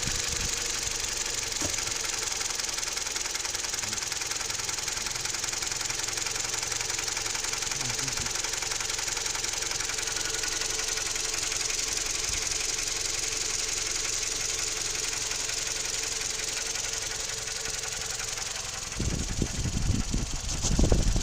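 Toyota 3ZR-FAE 2.0-litre inline-four engine running warm with a steady knock, a noise the owner hears only once the engine is warm and whose cause he does not know. From about 19 seconds in, loud, uneven low rumbling covers it.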